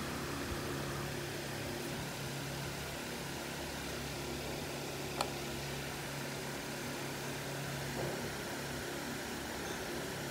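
Steady low hum and hiss of room noise, with one small sharp click about five seconds in as small plastic model parts are handled.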